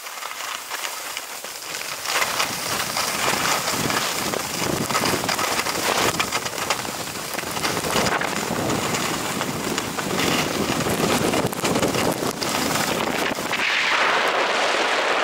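Skis scraping and hissing over groomed, hard-packed snow on a downhill run, with wind on the microphone. The noise swells about two seconds in and stays up as the run picks up speed.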